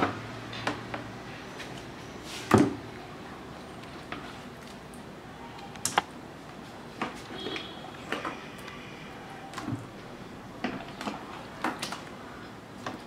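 Metal spoon tapping and clinking against plastic containers while oily mango pickle is scooped from a plastic tub into a plastic jar, with soft wet squelches. The taps come irregularly, one every second or so, the loudest about two and a half seconds in.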